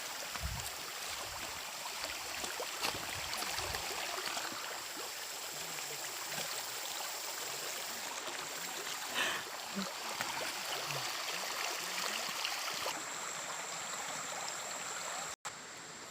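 Steady rushing of flowing stream water, an even hiss, with a few low bumps in the first few seconds. The sound cuts out for an instant near the end.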